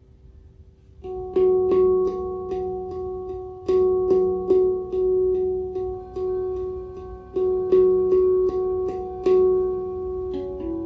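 Handpan played by hand: after about a second of quiet, notes are struck a couple of times a second in a flowing pattern, each ringing on and overlapping the next.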